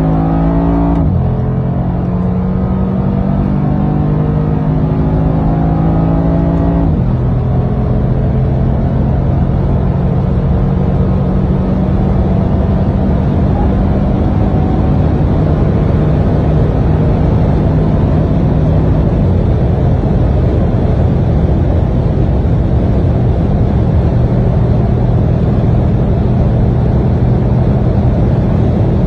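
Mercedes-AMG G63's twin-turbo V8 accelerating hard: the engine note climbs and drops at two upshifts, about a second in and about seven seconds in, then settles into a steady high-speed cruise with constant road and wind noise.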